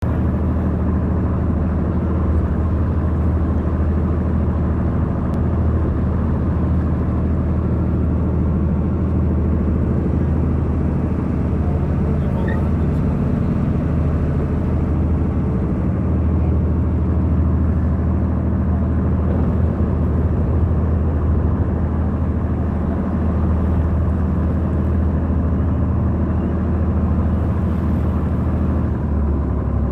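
A boat's engine running steadily with a deep, continuous drone.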